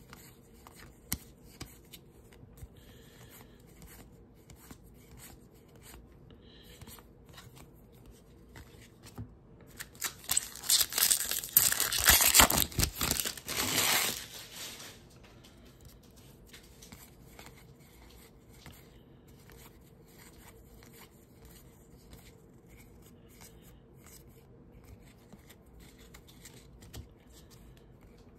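Trading cards being handled and flipped with soft scattered clicks. About ten seconds in comes a loud crinkling rip lasting several seconds: a foil baseball-card pack wrapper being torn open.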